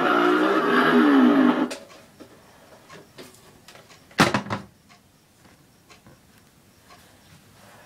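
Chainsaw running with a pulsing, revving drone that cuts off abruptly under two seconds in. A single loud knock follows about four seconds in, then only faint handling clicks.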